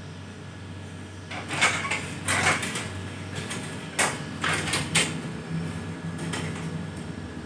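Plastic AC air filter handled on top of a stepladder: rustling scrapes, then several sharp plastic clacks as it is knocked and set against the ladder.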